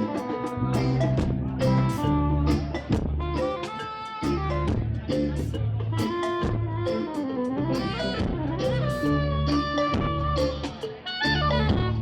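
Live band music: strong bass notes and a steady drum beat under a melodic lead line.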